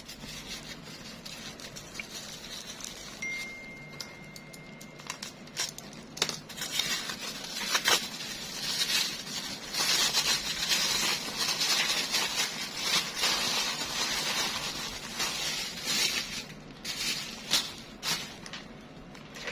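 Plastic packaging rustling and crinkling as a Zippo lighter's box is unwrapped and handled, with many small clicks and taps, busiest after about six seconds. A faint thin steady tone sounds for about two seconds, about three seconds in.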